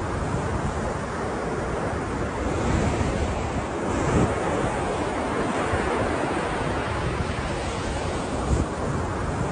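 Ocean surf breaking and washing on the shore, a continuous rush with a swell in loudness a few seconds in, and wind buffeting the microphone.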